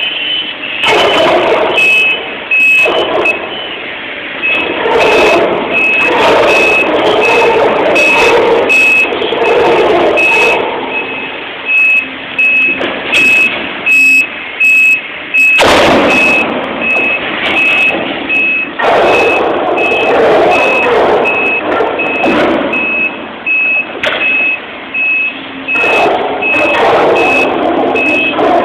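A hydraulic excavator's demolition attachment tearing and crunching into the thick steel shell of a large sphere, with loud grinding and screeching in stretches and sharp metallic knocks. A reversing alarm beeps steadily, about twice a second, throughout.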